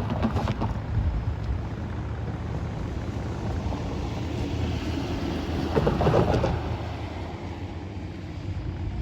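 Florida East Coast Railway ballast train rumbling steadily, with two brief louder bursts of clatter, one right at the start and one about six seconds in.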